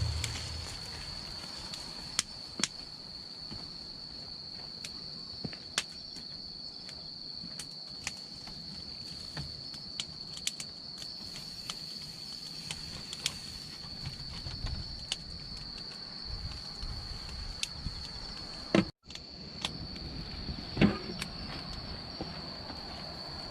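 Steady high insect trill, like crickets, with scattered sharp crackles and pops from a wood campfire.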